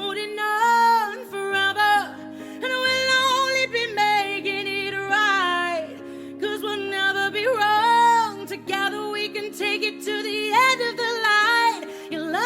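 A song playing: a woman singing over instrumental accompaniment.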